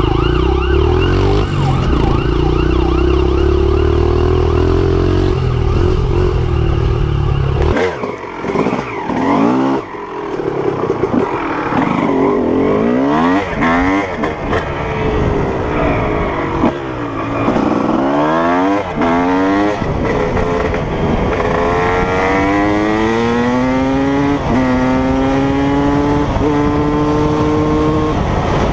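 Dirt bike engines at speed: first a steady drone, then from about eight seconds in one bike revving hard and climbing through the gears, its pitch rising, dropping at each shift and rising again. A police siren wails at the very start.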